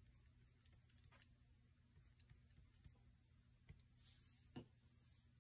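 Near silence: a faint steady hum, with a few soft clicks and a light rustle of hands handling a plastic palette sheet.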